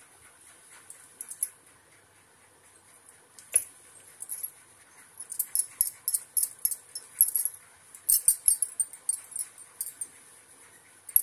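Glass bangles on the wrists clinking in short jingling runs as hands roll small balls of dough between the palms, sparse at first and busiest in the second half.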